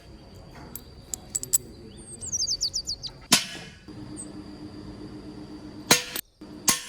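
A series of sharp knocks and clicks, the loudest about three seconds in and twice near the end, over a faint steady hum that starts partway through. A bird gives a quick run of falling chirps about two seconds in.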